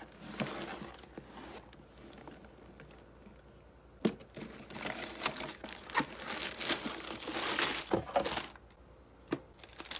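Cardboard LEGO set box handled, with a sharp knock about four seconds in. Then sealed plastic bags of LEGO bricks crinkle and rattle as they are slid out of the box onto the table, with a louder knock near the end.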